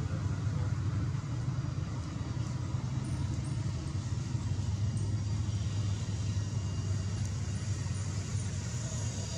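Steady low outdoor rumble, with a faint high steady whine coming in about six seconds in.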